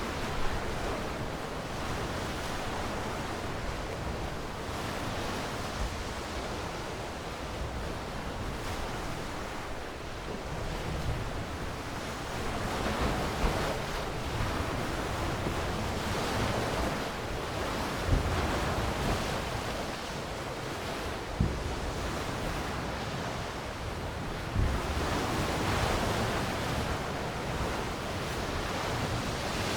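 Ocean waves washing ashore, the surf swelling and easing every few seconds, with a few short low thumps from wind on the microphone.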